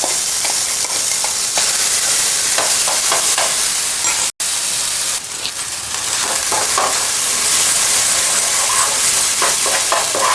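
Ground ginger paste frying in hot ghee in a pan, with a loud, steady sizzle and a few faint scrapes. The sizzle cuts out for an instant about four seconds in.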